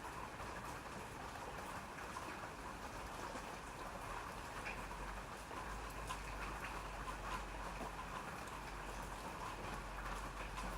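Steady rain falling, an even hiss of many drops with scattered individual drops ticking on a surface.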